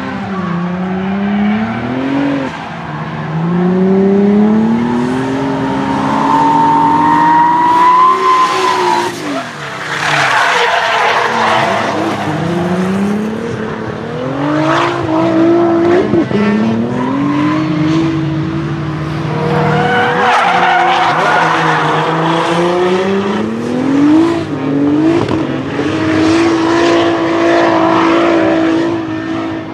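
Nissan 200SX S13 drift car with a swapped-in VR38DETT twin-turbo V6 from an R35 GT-R, revving up and down again and again and held at high revs near the end. The rear tyres screech in long stretches as the car slides sideways.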